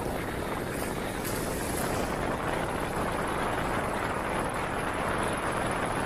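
Steady rushing wind and road noise of riding a motorcycle, with no clear engine note and no sudden sounds.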